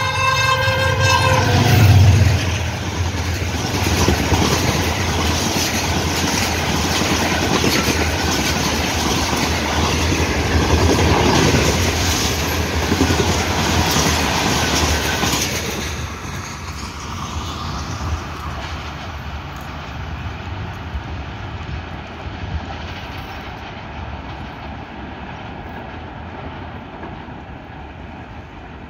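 Horn of a Pakistan Railways AGE-30 diesel locomotive sounding a chord that cuts off about a second and a half in. Then the locomotive and its coaches run through at about 110 km/h, with a rapid clickety-clack of wheels over the rail joints. About 16 seconds in, the last coach passes and the sound fades as the train recedes.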